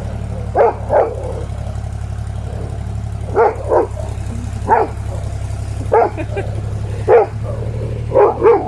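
A dog barking at a working excavator, about nine sharp barks with pauses, some in quick pairs. Underneath, the excavator's engine runs steadily as a low drone.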